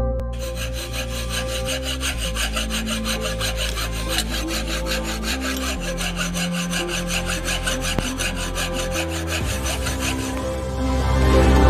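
Rapid, even rasping strokes of a hand tool working bamboo, over low background music. The strokes stop near the end as the music comes up louder.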